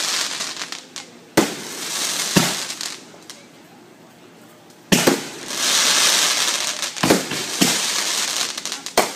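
Consumer fireworks going off: a sharp bang, then another about a second later, each trailed by a hiss, then a longer run of bangs and loud hissing from about five seconds in.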